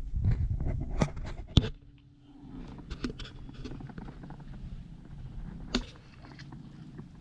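Low rumble with several sharp knocks in the first two seconds, then a few lighter clicks and one more sharp knock about two-thirds of the way in: knocks and handling noise.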